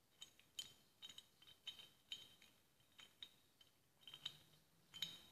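Faint, irregular light metallic clicks and clinks, about two a second, as small parts of a car starter motor are handled and fitted into its metal end housing.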